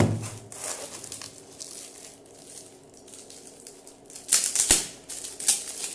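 Gift wrapping paper rustling and crinkling as a wrapped box is turned over in the hands, with a few louder, sharp crackles a little past four seconds in.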